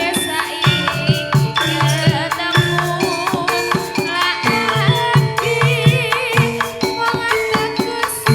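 Javanese jaranan dance music: a gamelan-type ensemble of drums and struck gongs and metallophones playing a busy rhythm. A wavering high melody line rises above it about two-thirds of the way through.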